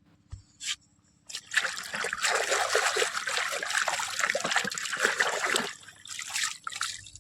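Water trickling and splashing as a toy train is washed. After a couple of small clicks, the water runs steadily for about four seconds, then thins out to brief splashes.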